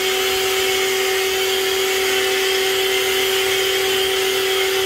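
Rock&Rocker 1500 W electric pressure washer running steadily while spraying soapy foam through its foam cannon: a steady motor-and-pump hum under the hiss of the spray.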